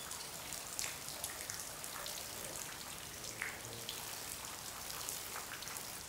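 Faint water sounds from a cave spring: many small, irregular drips and light splashes over a soft background hiss.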